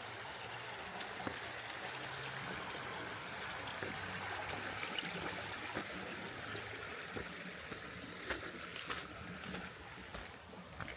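Small creek water rippling and trickling down over rocks, a steady even rush of flowing water.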